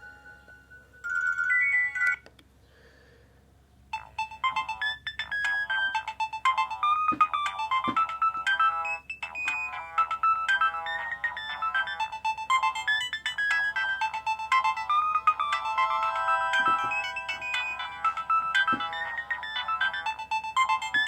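Nokia 2310 mobile phone ringtone playing, a fast melody of many stepping electronic notes. It starts about four seconds in, after a short tone and a brief pause.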